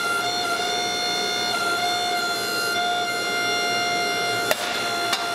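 Hydraulic forging press whining steadily under load as its punch is driven into a red-hot steel axe head. Two sharp metallic clicks sound near the end, about half a second apart.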